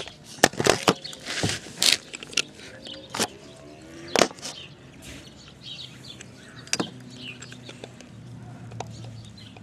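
Knocks and bumps of the camera being handled and set down, then a few sharp, scattered clicks and clanks of a hand tool working on a stripped-down Briggs & Stratton lawnmower engine.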